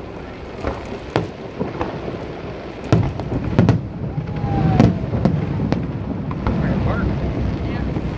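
Fireworks display: aerial shells going off in a run of sharp bangs over a low rumble. The bangs come thicker and louder from about three seconds in.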